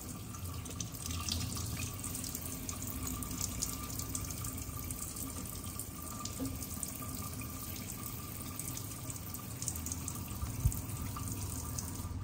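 Kitchen faucet running steadily into a stainless steel sink, the stream splashing over hands being washed. A single low thump comes near the end.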